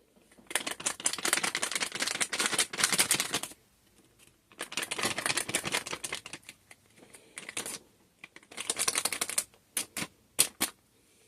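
Dry topping rattling in a shaker container as it is shaken over a soap top in three bursts of quick rattling, followed by a few single taps near the end.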